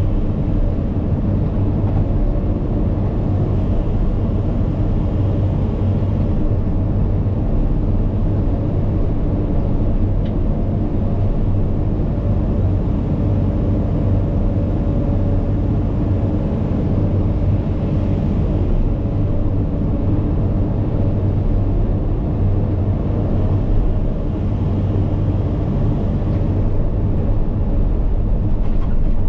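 Cat 395 hydraulic excavator's diesel engine running steadily with a low drone while it digs and loads.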